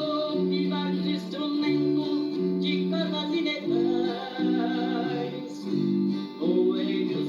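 Sertanejo raiz duet: two high-pitched male voices sing long held notes in close harmony as first and second voice over a plucked guitar.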